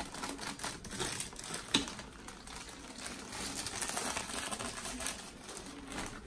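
Clear plastic packaging wrap crinkling and rustling as a plastic-wrapped fabric bassinet basket is handled and lifted, with a sharp knock just under two seconds in.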